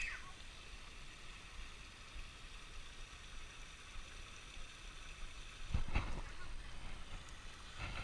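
Steady trickle of water spilling over a small spillway into a pool, with two quick knocks about six seconds in.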